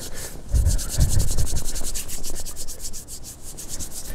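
Close rubbing and scraping in quick, even strokes, with two dull thumps about half a second and a second in.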